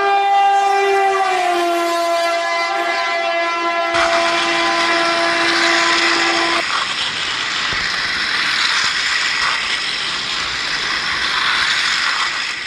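Battery-operated toy train's electronic horn: one long held tone that dips slightly in pitch about a second in and stops after about six and a half seconds. From about four seconds in it is overlapped by a steady hissing rush that carries on once the horn has stopped.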